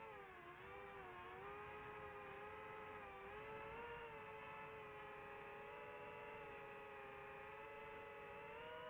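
DJI FPV drone's motors and propellers whining at a steady pitch that dips briefly about half a second in and then wavers gently with the throttle.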